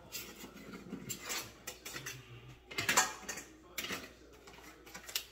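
Kitchen dishes and utensils clattering: a string of separate clinks and knocks, the loudest about three seconds in.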